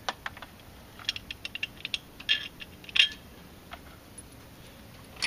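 Small metal clicks and rattles from a throttle-cable bracket and its cables and connectors being handled and worked loose, with the loudest click about three seconds in and another sharp click at the very end.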